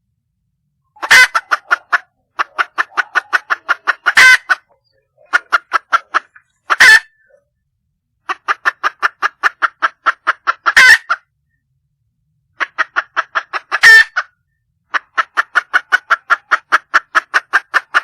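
Wild hen (female red junglefowl) calling for a male: runs of rapid clucking notes, about five or six a second, each run lasting one to three seconds with short pauses between, and a much louder harsh note within most runs.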